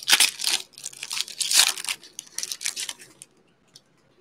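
A foil-wrapped Panini Mosaic trading-card pack being torn open, the wrapper crinkling in several rustling bursts that die away about three seconds in.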